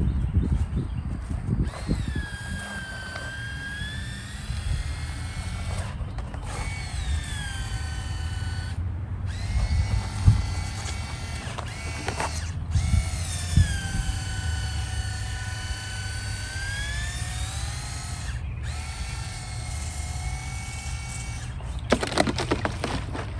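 Small electric motor of a pest sprayer running in stretches of a few seconds with short breaks, its whine dipping and rising in pitch, over a low rumble.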